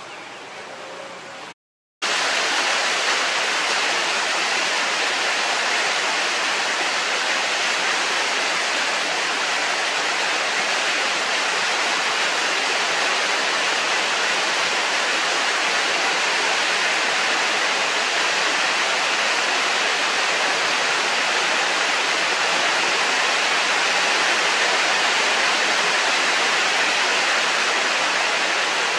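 A steady, even rushing noise with no breaks. It starts abruptly about two seconds in, after a short moment of silence, and holds at the same level throughout.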